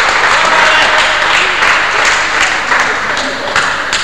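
Crowd applauding, the applause dying down toward the end, with a few last separate claps.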